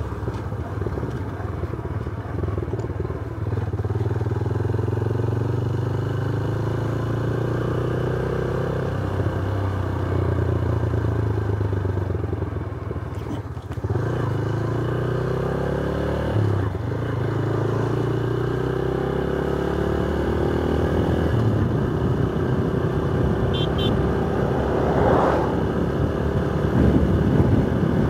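Yamaha YBR125 single-cylinder motorcycle engine running under way, its note slowly climbing and falling several times with speed. There is a short drop about halfway through, all over a steady rush of wind and road noise.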